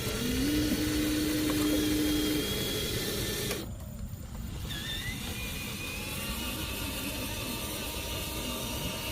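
Steady machine-like running noise, with a humming tone that rises and holds for about the first two seconds. The higher part of the noise drops out briefly about three and a half seconds in, then returns.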